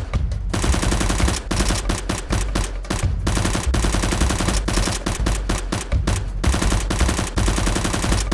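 Dubbed-in automatic gunfire sound effects: rapid shots in long bursts, broken by short pauses.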